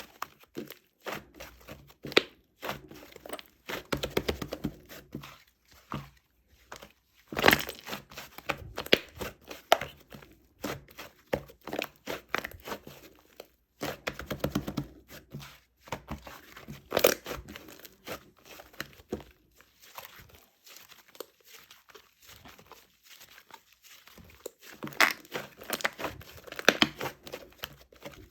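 Irregular crinkling and rustling with sharp crackles, coming in clusters with short pauses between.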